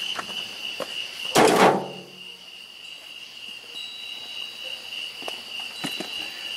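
Steady chorus of night insects, a constant high-pitched trill. About one and a half seconds in comes a single loud thunk, and there are a few faint knocks later on.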